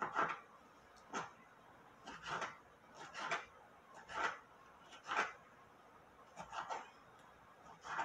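Kitchen knife dicing a tomato on a plastic cutting board: slow single cuts, about one a second, each a short slice ending in a light knock on the board.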